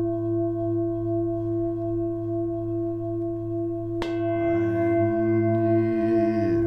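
Tibetan singing bowl ringing with a steady, layered tone. It is struck again about four seconds in, and a fresh bright ring rises over the sustained hum.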